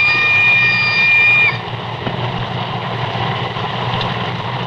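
A train whistle holding one long steady chord, cutting off about a second and a half in, over a low steady background rumble.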